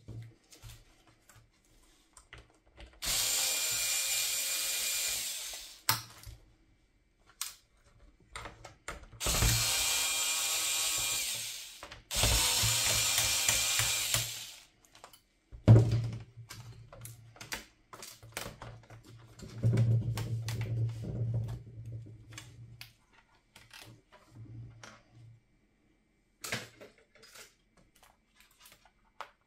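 Small electric screwdriver running on laptop screws in three whining bursts of two to three seconds each, then a lower, shorter buzz about twenty seconds in. Clicks and small-part handling come in between.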